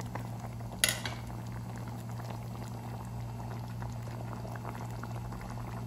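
Thick avial, a coconut-and-vegetable curry, simmering uncovered in a saucepan: soft bubbling and popping as its water cooks off, over a steady low hum. One sharp click a little under a second in.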